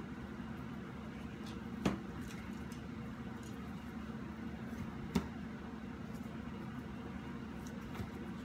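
Faint ticks and rustles of a seasoning shaker bottle being shaken over raw chicken thighs, with gloved hands handling the meat, over a steady low room hum. Two sharper clicks come about two and five seconds in.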